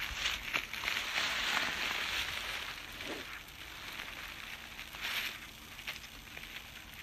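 Footsteps and rustling through dry leaf litter and undergrowth: a steady run of crackles, louder for the first few seconds and then fading.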